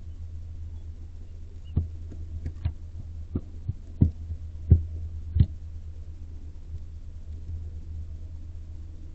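A series of about eight dull knocks and thumps on the wood of a barn owl nest box, bunched together near the middle, over a steady low hum.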